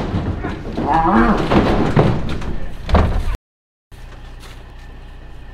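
Loud bangs and clattering as cattle are loaded up a wooden chute into an aluminum livestock trailer, the loudest bangs about two and three seconds in, with a short voice-like call about a second in. The sound cuts off suddenly after three seconds and a quieter steady background follows.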